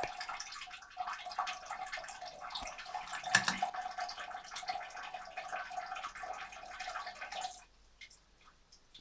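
A cat urinating into the water of a toilet bowl: a steady trickling splash with a ringing note, which stops abruptly near the end. One sharp knock sounds about three and a half seconds in.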